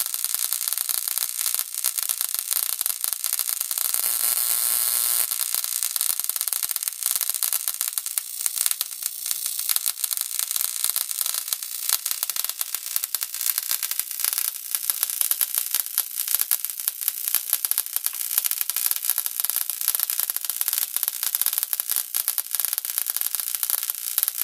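High-voltage arc from an oil-filled ignition coil, driven through a 4.7 µF current-limiting capacitor, crackling and hissing continuously across the spark gap.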